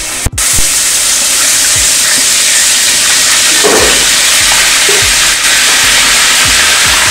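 Ginger-garlic paste hitting hot oil in a large aluminium pot, setting off a loud, steady sizzle that starts about half a second in, with a few low thumps.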